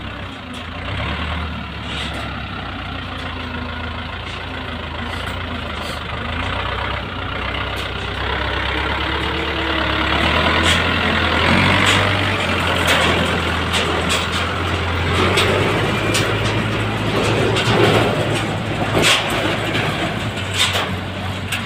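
Iseki 7000 farm tractor's diesel engine running hard as it pulls a trailer through deep mud, getting louder from about ten seconds in, with scattered sharp knocks.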